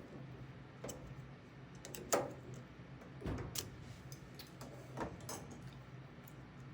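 Improvised metal picking tools clicking and scraping in the pin-tumbler lock of a vintage Steelcase desk drawer: about half a dozen short, sharp clicks, the loudest about two seconds in.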